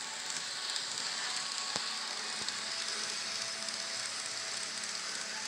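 N scale Amtrak Turboliner model train running along its track: a steady, even hiss with a faint thin whine under it, and a single click about two seconds in.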